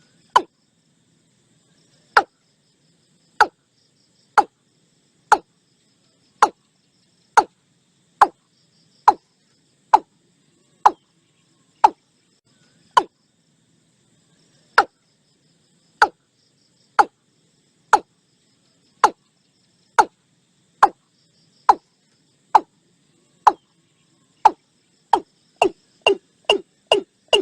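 Watercock calling: a series of short, sharp notes that each drop quickly in pitch, about one a second, speeding up into a quicker run near the end.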